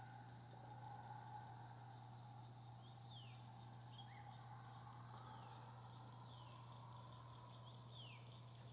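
Faint bird calls, a few short falling whistles, over a steady high insect buzz and a steady low hum.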